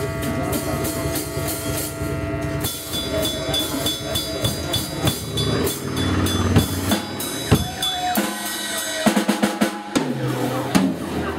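Live band playing, the drum kit loudest, with held notes from the other instruments. About nine seconds in there is a quick drum fill of rapid hits.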